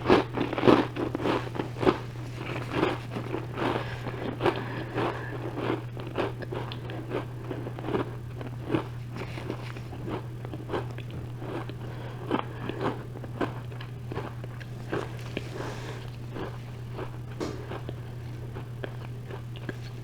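Close-up chewing and crunching of a crisp chocolate chip cookie: many short irregular crunches, loudest and densest in the first few seconds, thinning into softer chewing later, over a steady low hum.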